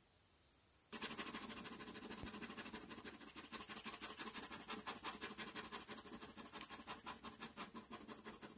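Felt-tip marker scratching on paper in rapid, repeated strokes, several a second, while inking a drawing. It starts suddenly about a second in.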